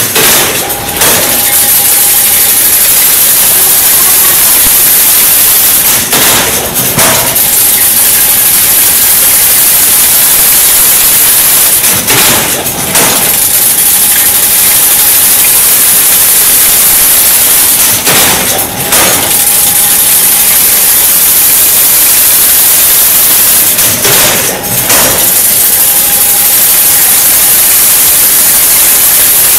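Chain-link fence weaving machine running with a loud, steady hissing rush. A heavier clattering stroke with a brief hum comes about every six seconds, in a regular machine cycle.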